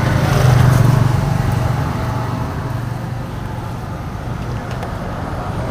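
Steady low hum of a running road vehicle's engine, swelling louder in the first second or so and then settling.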